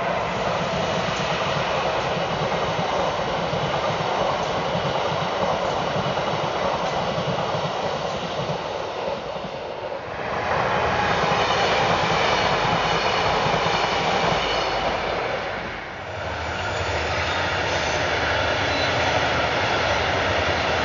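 Passing electric regional train with double-deck coaches: a steady rush of wheel-and-rail rolling noise. The sound shifts abruptly twice, about halfway and again about three quarters of the way through; after the second shift a low rumble is stronger.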